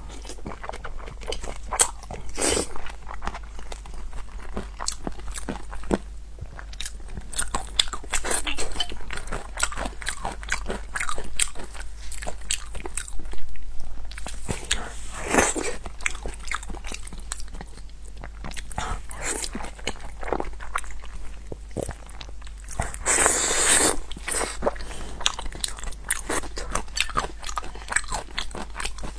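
Close-up chewing and crunching of crisp food: a steady run of small crunches and clicks, with a longer rush of noise near the end.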